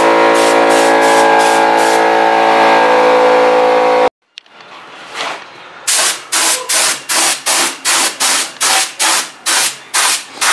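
Background music with a steady beat for about the first four seconds, cut off abruptly. Then a gravity-feed paint spray gun sprays primer in short, even bursts, about two and a half a second.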